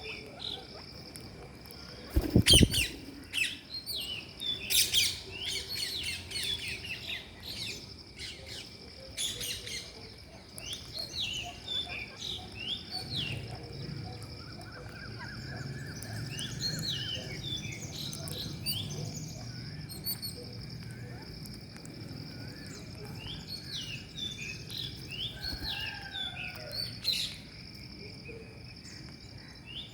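Birds chirping and calling in quick clusters of short notes, over a steady high-pitched drone. A loud knock comes about two seconds in.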